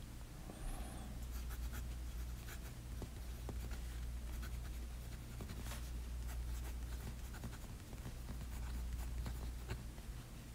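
Steel medium nib of a Waterman Hemisphere fountain pen writing on paper: a quiet, irregular run of short scratches and ticks as each stroke and letter is formed, over a steady low hum.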